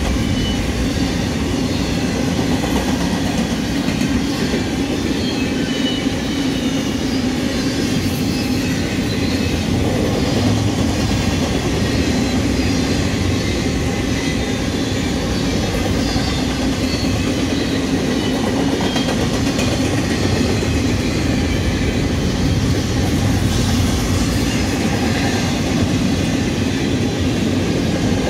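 A freight train of empty intermodal well cars rolling steadily past: a continuous rumble of steel wheels on rail with clickety-clack over the rail joints and faint, brief wheel squeals.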